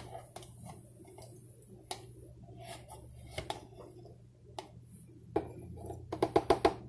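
Metal spoon scooping thick yogurt from a plastic tub, with soft scrapes and scattered clinks. Near the end comes a quick run of sharp taps as the spoon is knocked against the rim of a clear plastic Nutribullet blender cup to shake the yogurt off.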